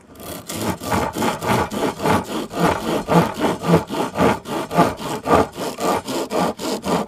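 Coarse-toothed reciprocating saw blade, fitted in a homemade hand saw, cutting through a small dry branch with fast back-and-forth strokes, about four a second.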